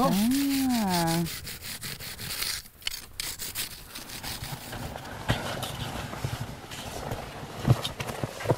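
A serrated snow saw rasping back and forth through a block of packed snow, cutting a brick for an igloo. It follows a short drawn-out voice at the start and goes on as a rough, uneven scraping.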